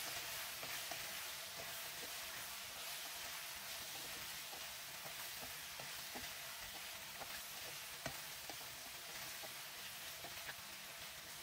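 Mutton pieces sizzling in hot oil in a nonstick wok as they fry with spices, stirred with a wooden spatula that makes scattered small scrapes and taps against the pan.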